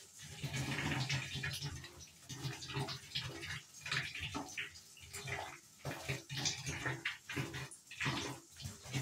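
Bare feet treading in wet slime on a bathtub floor, making irregular squishing, slapping steps several times a second.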